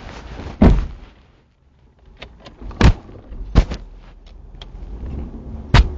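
A series of sharp thuds and knocks: four loud ones spread across the few seconds, the third closely followed by a second knock, with lighter clicks between.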